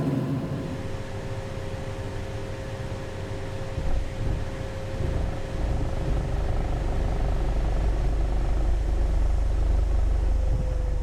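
Cessna CJ4 business jet's turbofan engines running: a steady whine at one pitch over a low rumble that swells about four seconds in, the whine sagging slightly near the end.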